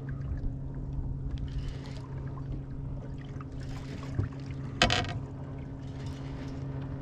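Boat motor humming steadily at an even pitch, with one short sharp knock about five seconds in.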